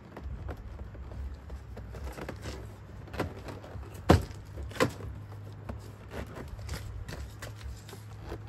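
Plastic door trim panel knocking and rattling against a truck's door as it is handled and pressed into place, with a sharp knock about four seconds in and another just under a second later.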